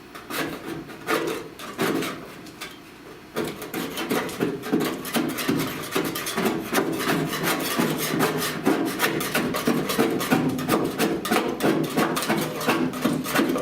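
Rapid, repeated scraping strokes on the car's steel rocker panel, working off paint and body filler softened by aircraft paint remover; a few scattered clicks first, then continuous scraping from about three seconds in.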